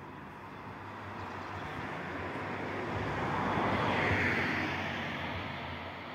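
A vehicle passing by: a rushing noise that swells gradually, peaks about four seconds in, then fades, over a low hum.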